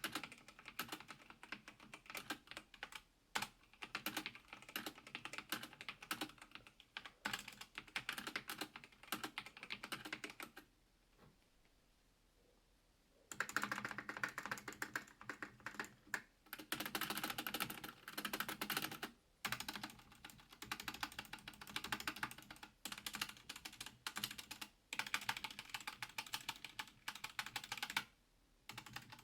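Logitech G512 Carbon mechanical keyboard with GX Red linear switches being typed on in quick runs of keystrokes. About a third of the way in the clicking stops for a couple of seconds, then resumes as the larger stabilized keys are pressed to test their stabilizers.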